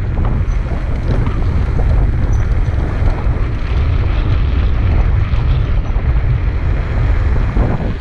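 Wind buffeting the microphone while moving along a road, a steady loud low rumble with rushing noise over it.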